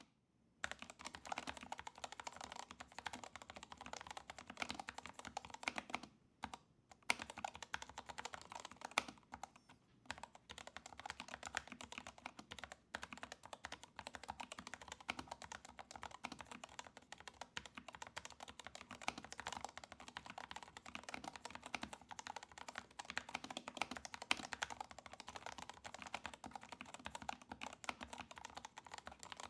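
Typing on a Syntech Chronos 68 low-profile mechanical keyboard: a fast, continuous stream of key presses, broken by a few brief pauses.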